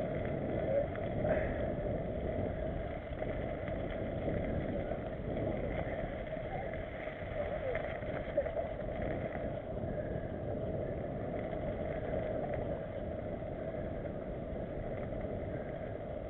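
Mountain bike rolling fast over a dirt forest trail: a steady rumble of tyres and wind noise on a bike-mounted camera.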